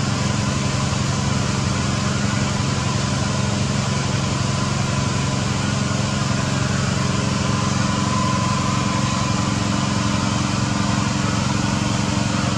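A small engine running steadily at an even speed, a constant low drone with a faint thin whine above it.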